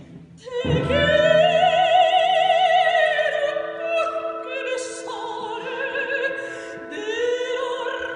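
Operatic soprano singing with an orchestra. After a brief pause she comes in about half a second in on a long, loud held note with wide vibrato, then sings on in shorter phrases.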